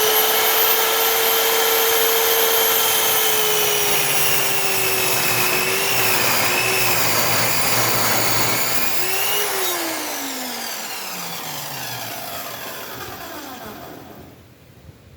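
Chop saw running at full speed with a high whine, dipping slightly in pitch a few times as the blade cuts through a wooden beam. About ten seconds in it is switched off and winds down, the whine falling steadily over about four seconds.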